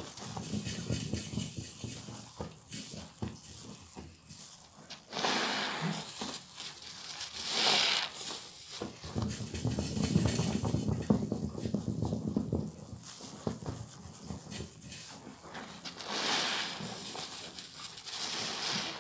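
Hands squeezing and kneading a suds-soaked sponge in soapy water: wet squelching and crackling foam, with a few louder swells of hissing water as the sponge is pressed.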